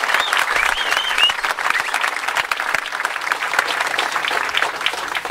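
An audience applauding, with a few high shouts of approval in the first second or so.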